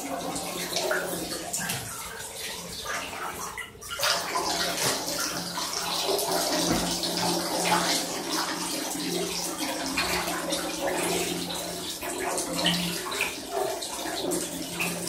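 Bathwater splashing and sloshing as a pet mink swims and scrambles about in a bathtub, with a steady low hum underneath. The sound briefly drops out just before four seconds in.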